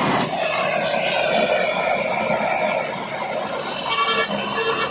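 Handheld gas torch burning with a steady hissing roar while it heats a radiator's top tank.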